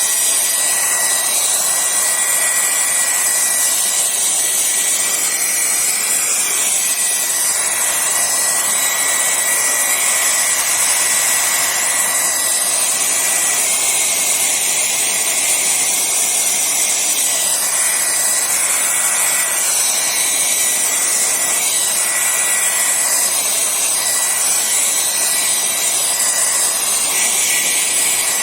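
Hair dryer running steadily, blowing on wet watercolour paint to dry the layer faster: an even rush of air with a thin steady motor whine over it.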